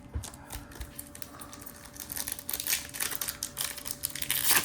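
Stiff chrome trading cards being handled and flipped through, a run of small clicks and crinkles with a few soft thumps at first, getting busier from about halfway and loudest near the end.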